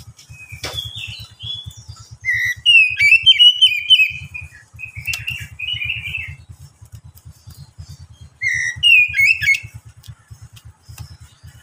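Oriental magpie-robin (kacer) singing: loud, warbled, whistled phrases in four bursts, a short one near the start, a long one from about two to four and a half seconds, then two more around five to six and a half and eight and a half to nine and a half seconds. Beneath the song runs a low, fast, even pulsing.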